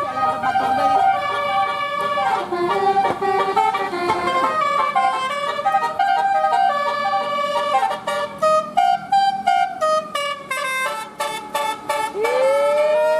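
Bus telolet horn, a multi-trumpet air horn, playing a melody of held notes. About eight seconds in it breaks into rapid short blasts, several a second, and it ends with a rising siren-like glide.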